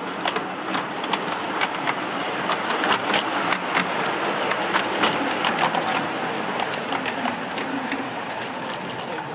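Miniature steam locomotive hauling a ridden train of small wagons along a ground-level track: irregular wheel clicks over the rail joints above a steady rushing noise, loudest about three to five seconds in as it passes.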